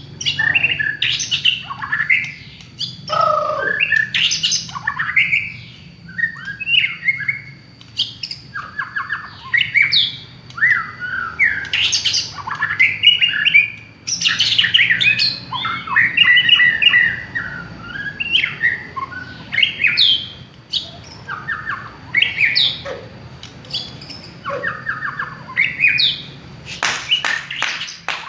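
White-rumped shama singing a long, unbroken run of varied whistled and chattering phrases that change every second or so, with a cluster of sharp, clipped notes near the end.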